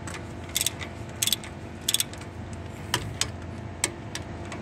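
Socket ratchet wrench clicking as it tightens a mounting bolt on an AC condenser fan motor: three quick bursts of clicks about two-thirds of a second apart, then a few single clicks.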